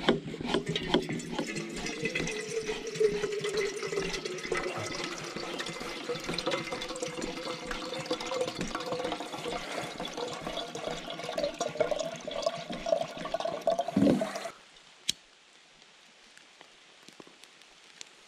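Water running from a jug's spout into a stainless steel kettle, its pitch rising steadily as the kettle fills; the flow stops suddenly about fourteen seconds in. A couple of faint clicks follow.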